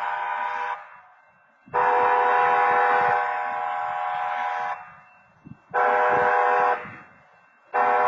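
CTC wayside horn at a railroad crossing sounding the train-horn warning pattern in several tones together. A long blast ends under a second in, a long blast of about three seconds follows, then a short one-second blast and another long blast starting near the end: the long-long-short-long crossing signal, sounded automatically for an approaching train.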